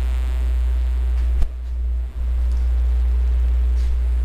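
A steady low rumble or hum, with a faint high whine that fades out in the first second and a half.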